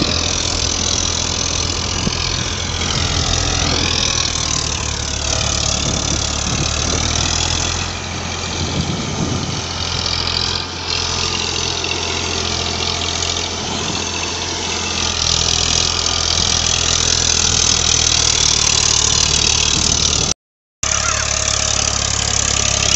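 Eicher 551 tractor's three-cylinder diesel engine running steadily under load while it drives a rotary tiller through dry soil. The sound cuts out for a moment near the end.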